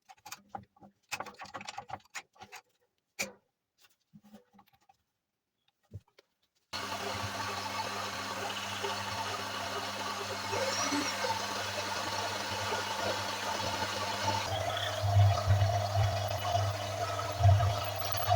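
A few scattered clicks and knocks, then an electric motor starts abruptly and runs steadily with a low hum. About two-thirds of the way in its tone shifts and it grows louder in pulses, as if a tool is put under load.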